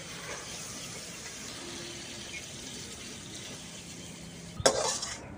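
Crab masala sizzling steadily in a hot wok, then about four and a half seconds in a metal ladle scraping and knocking against the wok as the curry is tipped out onto a steel plate.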